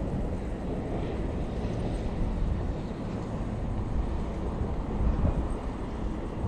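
Low, uneven outdoor rumble with no distinct event or tone.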